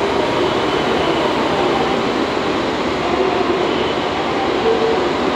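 A white electric express train running past along a station platform: a steady rumble of wheels and running gear with faint tones over it.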